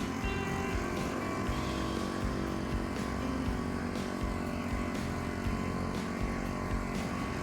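Engine of a walk-behind tractor running steadily with an even low pulsing.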